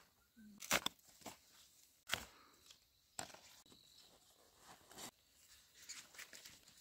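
A few faint, scattered knocks and clicks, about four distinct ones a second or so apart, with a short pitched vocal sound about half a second in.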